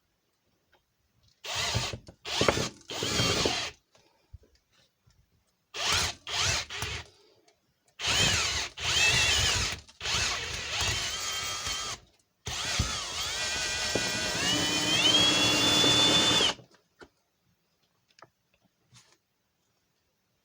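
Electric drill boring into a Master Lock padlock's cylinder to drill out its pins. It starts with six short bursts, then runs for two long stretches under load. Near the end of the last run the motor's whine steps upward, then the drill stops.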